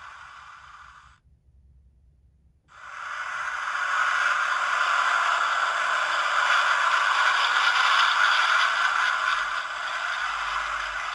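Recorded sound effect of a Douglas DC-3 airliner's piston engines flying over, played through the small speaker of a Hornby TTS sound wagon, so it sounds thin, with no low end. It starts about three seconds in, swells to its loudest midway and eases off slightly near the end.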